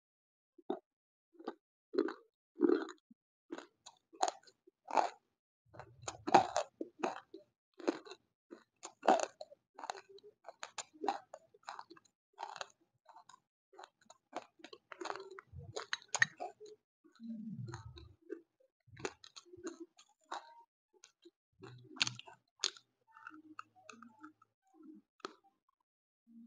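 Close-miked biting and chewing of crumbly white chalk-like lumps: sharp, irregular crunches and crackles, several a second, as the lumps are bitten and ground between the teeth.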